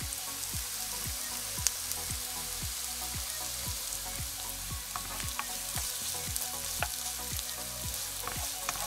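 Chopped onions sizzling gently in hot olive oil in a frying pan while being stirred with a wooden spoon, with a few sharp clicks, the loudest under two seconds in.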